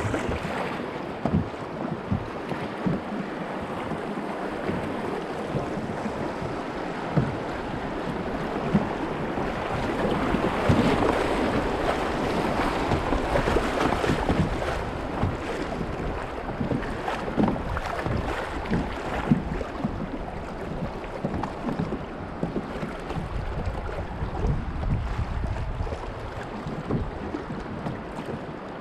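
River water rushing around a kayak in shallow rapids, with wind buffeting the microphone and the splash of paddle strokes. The rush swells and is loudest through the middle, as the kayak runs through the whitewater.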